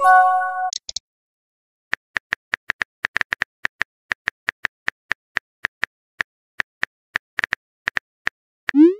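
Phone keyboard clicks as a text message is typed out: a long run of short, sharp taps, about three to four a second. A short chime of a few notes sounds at the start, and a quick rising swoosh of a message being sent comes near the end.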